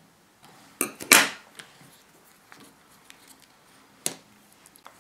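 A few light clicks and taps with a short rustle about a second in: small manicure items being handled at a work table.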